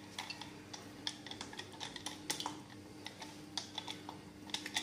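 Faint, irregular light clicks and taps of metal as a steel mixer-grinder jar is tapped and scraped out over a steel pot to empty tomato puree into it.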